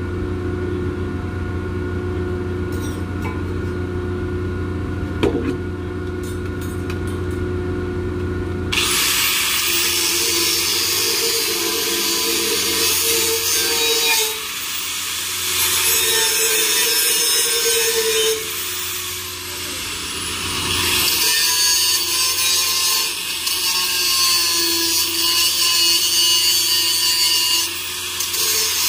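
Angle grinder working stainless steel pipe. For the first several seconds there is a steady motor hum, then from about nine seconds in comes the loud rough hiss of the tool biting into the metal. It eases off briefly around twenty seconds in and then picks up again.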